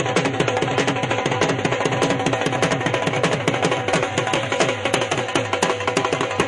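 Music with fast, dense drumming, the drum strokes coming several times a second and many of them dropping in pitch.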